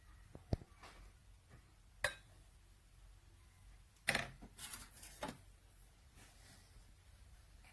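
A few light clinks and knocks of hard kitchenware being handled: one about half a second in, another at two seconds, then a quick cluster of clinks near the middle.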